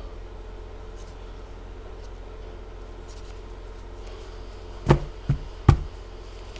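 Three quick, sharp knocks on a tabletop about five seconds in, from a tarot deck being handled and set down on the table, over a steady low hum.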